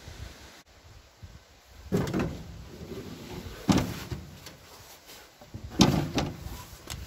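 Three heavy metal clunks with some rattling between them, from parts being worked loose while dismantling an old Belarus MTZ-52 tractor. The clunks come about two, three and a half, and six seconds in, the last two the loudest.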